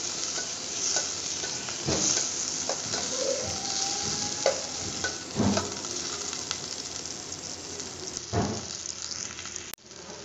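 Tomato, garlic and curry leaves sizzling in hot oil in a stainless steel pot, a steady frying hiss, while a steel ladle stirs and scrapes against the pot with a few sharp clinks. The tomato is being sautéed until its raw smell goes.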